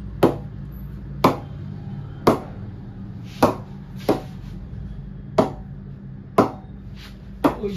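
A leather cricket ball knocked against the face of a Kashmir willow cricket bat eight times, about once a second, each hit a sharp wooden knock with a short ring. This is a ping test of how well the bat's willow rebounds the ball.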